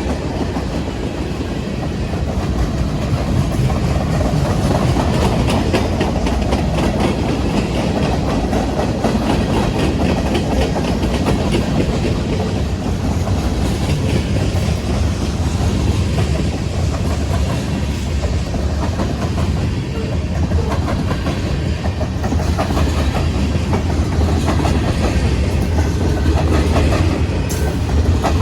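Train's cars rolling past close by: a steady noise of wheels on rail, with a fast run of clacks as the wheels cross the rail joints.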